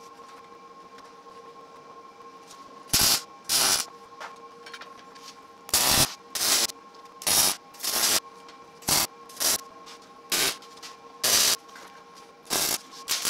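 MIG (wire-feed) welder laying short tack welds to fix steel bars onto steel washers: about a dozen brief bursts of crackling arc, each a fraction of a second long, starting about three seconds in and coming roughly every second.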